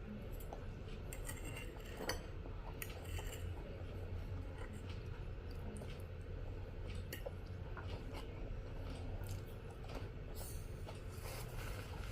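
Scattered faint clicks and light clinks of small objects being handled, over a steady low room hum.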